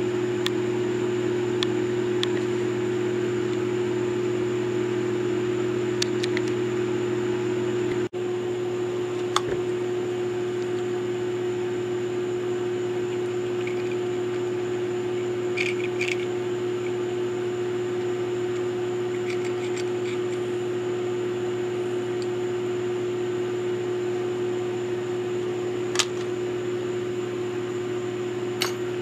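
Small milling machine's electric motor running with a steady hum, with a few light sharp clicks scattered through and a brief dropout about eight seconds in.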